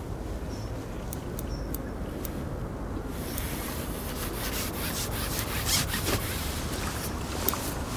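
Steady low rush of wind and rubbing on the microphone as a fish is played on a feeder rod and spinning reel. Scattered light clicks from rod and reel handling start about three seconds in.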